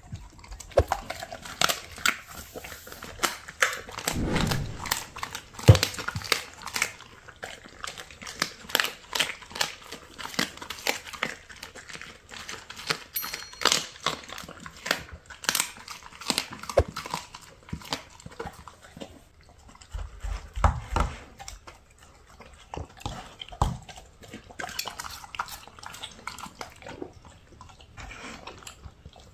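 A large dog eating a raw meal from a plastic slow-feeder bowl: wet chewing, biting and licking, with irregular sharp clicks of teeth against food and the bowl. Low thumps come about four seconds in and again about twenty seconds in.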